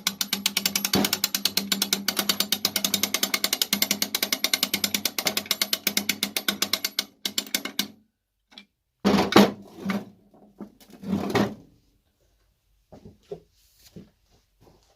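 Rapid, even ratcheting clicks, about ten a second, that run for about seven seconds and stop. Then come two louder knocks a couple of seconds apart and a few faint clicks.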